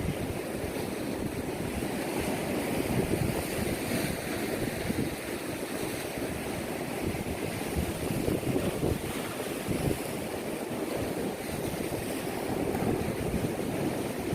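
Ocean waves washing in steadily, with wind buffeting the microphone.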